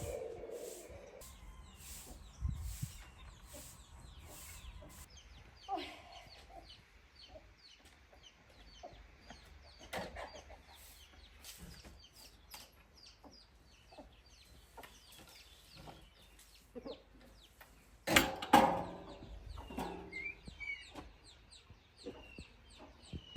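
Chickens clucking, with many short high calls and a louder burst of calls about eighteen seconds in.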